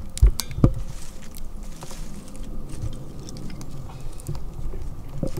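Small pine-stick fire crackling in a Kelly Kettle fire base, with two sharp knocks in the first second as sticks are handled, then scattered small crackles.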